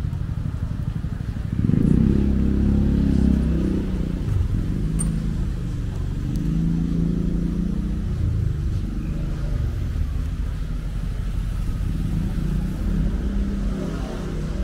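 Low rumble of motor traffic running past, which swells about two seconds in.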